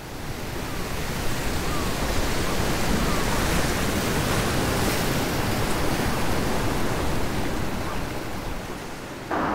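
Ocean surf: a steady rushing wash of waves, fading in over the first second. Music with held notes comes in just before the end.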